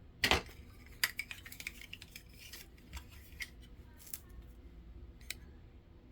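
Small metal parts of a disassembled door lock cylinder clinking as they are handled: a sharp rattle just after the start, a quick run of light clicks about a second in, then a few scattered single clicks.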